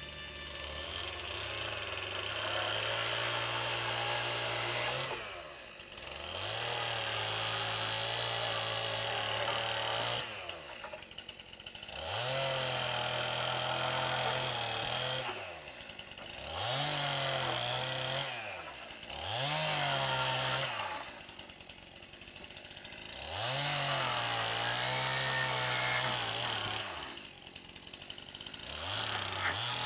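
Power saw motor repeatedly speeding up, running under load while cutting wood for a few seconds, then winding down, about seven times in a row.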